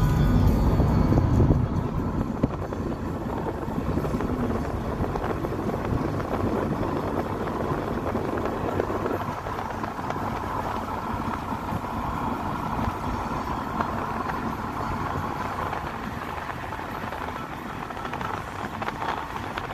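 Steady road and wind noise inside a moving car's cabin, heavier and lower for the first couple of seconds, then an even rush for the rest.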